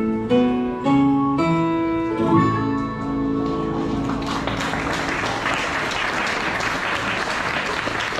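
The last plucked guitar chords of a song ring out, then audience applause builds from about three seconds in and carries on.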